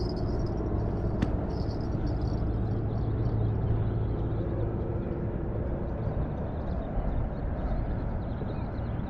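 Steady rumble of traffic on the bridge overhead, with a low drone that swells and fades in the middle as a vehicle passes.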